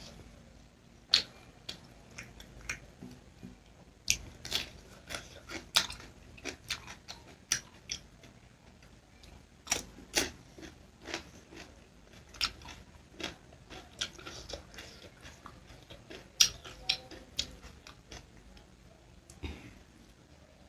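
Close-miked chewing and eating: irregular wet mouth clicks and smacks, a few to several a second.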